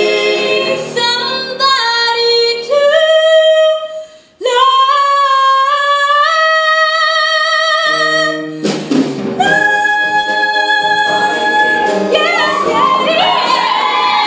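Mixed-voice show choir singing with a male soloist, in held notes and chords. About four seconds in the voices break off for a moment, then come back on a long held chord.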